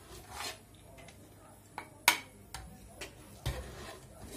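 Plastic serving spoon scooping biryani from an aluminium pot, with a series of irregular clicks and knocks against the pot, the sharpest about two seconds in.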